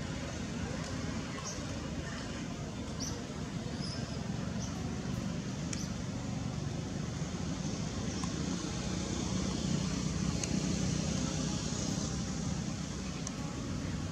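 Steady low outdoor rumble, like distant traffic, with a few faint short high chirps; no monkey calls.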